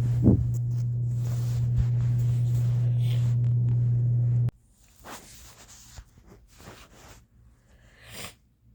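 Air conditioner running with a steady low hum, which stops suddenly about halfway through. After that the bedroom is quiet apart from a few faint short rustling noises.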